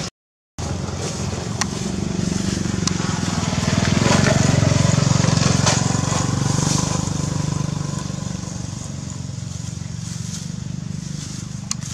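A motor engine rumbling steadily, growing louder about four seconds in and easing off again, with a few sharp clicks over it.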